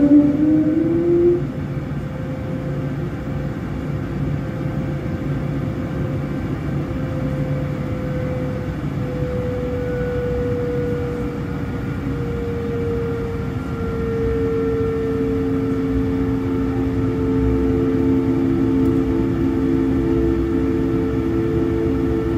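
Airliner's jet engines at taxi power heard from inside the cabin: a steady rumble with whining tones that drift slowly in pitch, a second, lower tone joining about two-thirds of the way through as the aircraft turns onto the runway.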